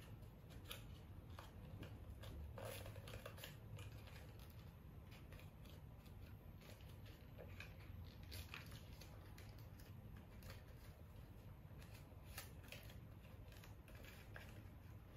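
Faint crinkling and rustling of a small piece of red paper being folded and creased by hand, in scattered short crackles, over a low steady hum.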